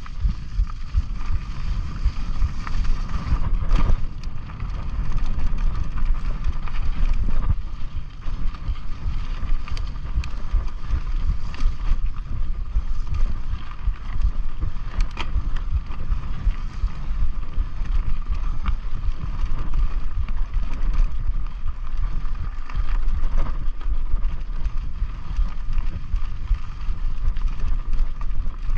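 Mountain bike ridden along a dirt trail: wind rushing over the microphone and a steady low rumble from the ride, with occasional sharp clicks and rattles from the bike over bumps.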